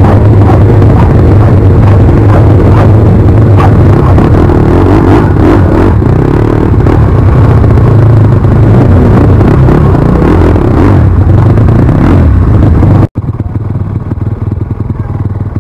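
Pit bike engines running loudly and steadily. About 13 seconds in the sound cuts off abruptly, then goes on quieter.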